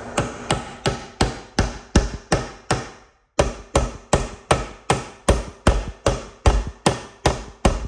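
Wooden-handled hammer driving the angled captive nails of a plastic nail-on electrical box into a wooden stud: quick, even blows, about three a second, with a short pause about three seconds in. The nails go all the way through the stud.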